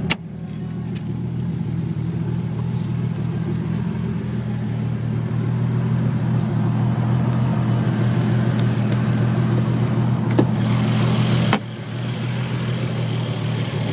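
1993 Toyota Supra's inline-six engine idling steadily shortly after a cold start, sounding good. A sharp click at the start, and another about ten seconds in, followed by a brief hiss and a sudden drop in level.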